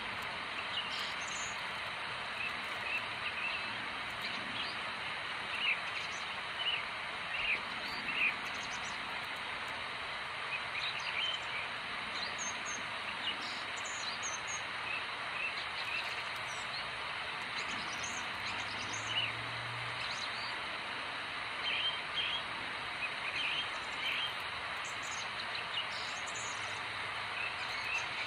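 Small birds chirping in short, high calls scattered throughout, a few louder ones several seconds in, over a steady outdoor background hiss.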